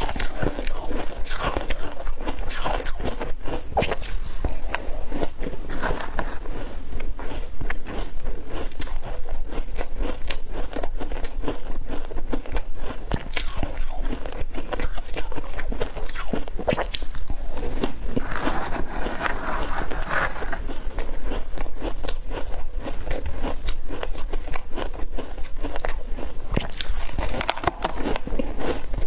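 Close-up crunching as chunks of hard frozen ice are bitten and chewed: a dense, continuous run of sharp cracks and crackles.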